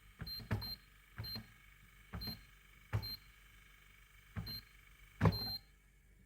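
A series of about seven short, high electronic beeps at uneven intervals, each starting with a click or tap. The last beep is held a little longer.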